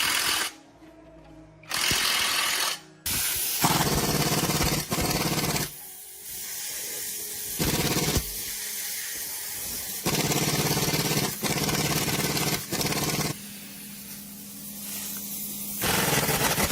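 A power tool running in repeated bursts of one to three seconds, each starting and stopping abruptly, with a steady low running note beneath.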